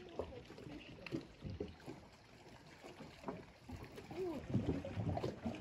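Faint, irregular lapping of small lake waves against the shore and dock.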